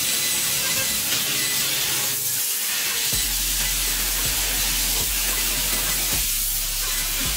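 Laser tube cutter cutting rusty square steel tube: the steady hiss of the assist-gas jet and molten metal blowing through the cut, over a low machine hum that shifts about three seconds in.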